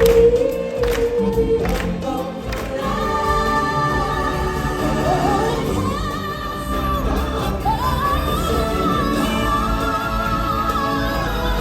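Live stage-show music: a group of singers over a band, with claps on the beat about every 0.8 s in the first couple of seconds. Then long held high vocal notes that glide up and soar over the ensemble.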